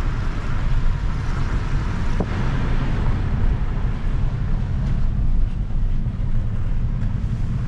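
Steady road noise inside the cabin of a Toyota driving on a wet street: a low rumble with the hiss of tyres on wet tarmac.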